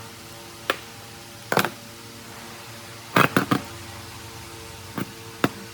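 Seven sharp knocks or taps at uneven intervals, the loudest a quick run of three a little past the middle, over a steady low hum.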